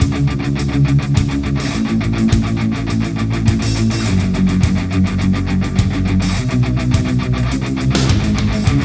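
Background heavy-metal music with fast, driving distorted electric guitar.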